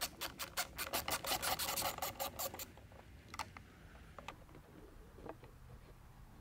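Ratcheting driver with a T20 Torx bit backing out the screws of a factory mass airflow sensor, clicking rapidly and evenly at about six clicks a second. The clicking stops a little before three seconds in, and a few scattered light clicks follow as the sensor is handled.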